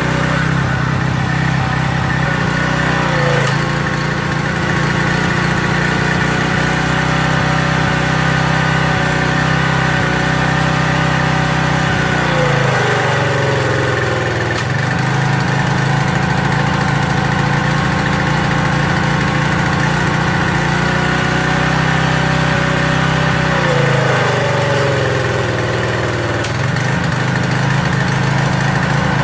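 Briggs & Stratton 175cc overhead-valve engine on a Craftsman pressure washer running steadily at speed, with the high-pressure spray hissing. Twice, about 12 seconds in and again about 24 seconds in, the engine speed sags for a couple of seconds and then climbs back: the engine loading down under the pump, which the owner thinks may come from drilling the carburettor jet a little too far.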